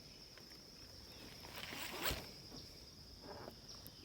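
Steady high-pitched insect drone, with a brief rustling scrape about two seconds in and a softer one a second later.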